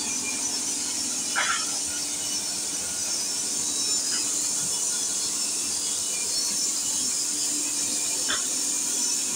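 Steady high hiss of workshop background noise with a faint low hum, broken three times by a short, high squeal.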